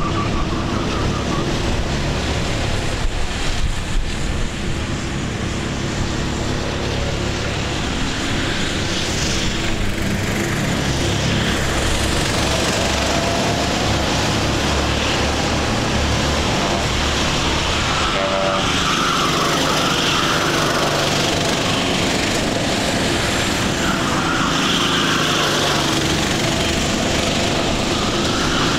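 Sodi rental race karts' small engines running on track, a steady engine drone that rises and falls in pitch as several karts pass close by.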